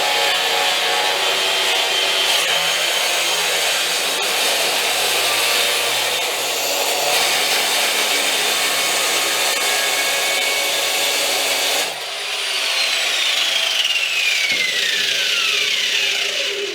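Handheld power tool cutting through a post, running steadily under load. It is switched off about twelve seconds in, and its whine falls steadily in pitch as the motor spins down.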